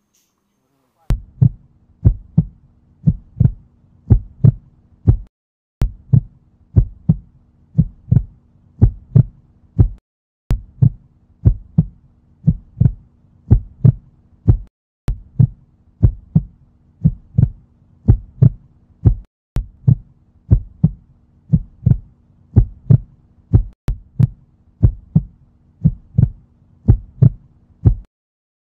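Heartbeat sound effect: thumps in lub-dub pairs, about one pair a second, over a faint steady low hum. It plays in stretches of about four seconds, cut by short dead-silent gaps.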